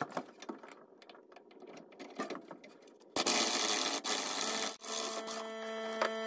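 Light clinking of tools on the suspension, then an impact wrench starts suddenly about three seconds in, hammering on the upper control arm bolt, and goes on as a steady whine as the bolt runs out.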